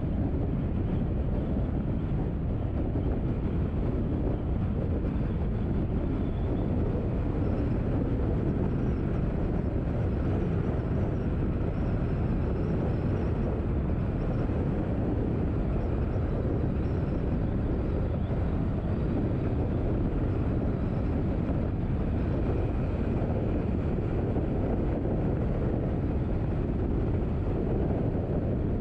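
Steady rumble of a car driving: engine and tyre noise on the road, even and unbroken.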